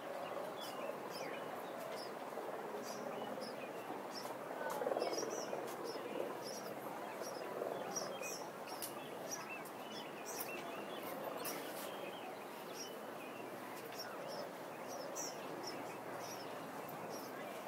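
Small birds chirping in short, high calls again and again over a steady background murmur of outdoor ambience, which swells briefly about five seconds in.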